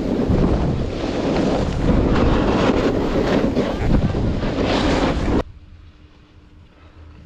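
Wind rushing over the microphone of a camera moving fast down a ski slope, with snowboards scraping over packed snow. About five seconds in it cuts off suddenly to a much quieter steady background with a faint hum.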